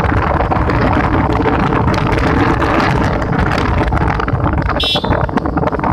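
Wind buffeting the microphone of a moving bike, a loud steady rumble and hiss. A short high-pitched sound cuts through once, near the end.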